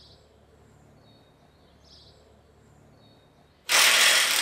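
Cordless power driver starting up abruptly near the end and running loudly, tightening a fitting on a scaffold tube. Before it, only faint background with a high chirp repeating about every two seconds.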